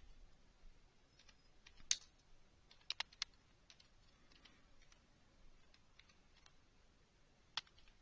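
A computer keyboard being typed on slowly: faint, scattered keystrokes with irregular gaps, about a dozen in all, a few louder than the rest.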